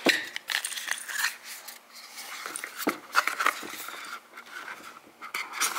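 A cardboard advent calendar door being opened and rummaged in by hand: scattered scrapes, crinkles and light taps of handled cardboard.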